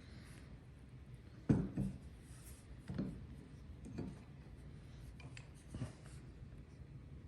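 A few short, dull knocks and handling noises, about five in all, over a low steady hum.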